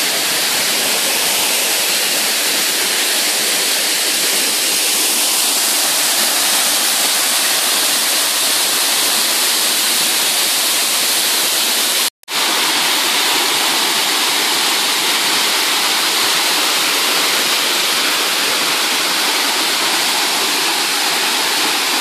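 Multi-tiered waterfall pouring down rock ledges into a foaming pool: a steady, loud rush of falling water. The sound cuts out for a split second about halfway through.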